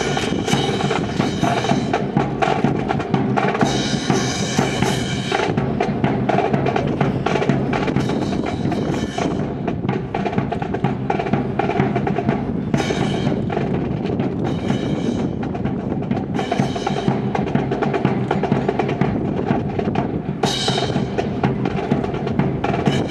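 Marching band music with heavy drums, bass drum and snare rolls, with sustained higher tones joining in and dropping out every few seconds.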